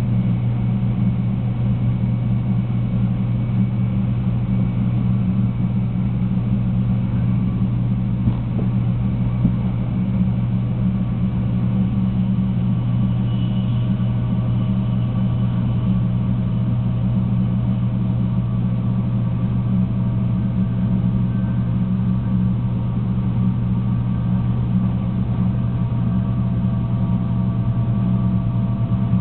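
Steady cabin noise inside a Shinkansen 300-series train running at speed: a constant low rumble with faint whining tones above it that drift slowly upward.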